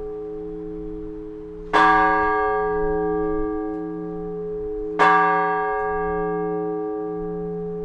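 A large Orthodox church bell struck twice, about three seconds apart. Each stroke rings on with a low, wavering hum beneath it. These are the slow, measured strokes of the blagovest, rung on one big bell to announce the all-night vigil service.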